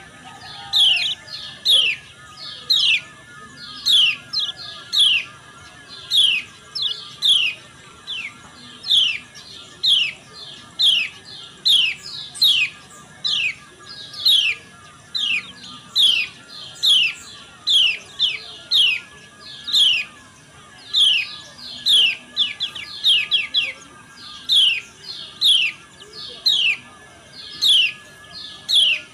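Kecial kuning white-eye calls: short, high chirps that each sweep downward, repeated in quick runs of one to four about once a second, the 'ciak' calls used as a training track to set kecial kuning singing.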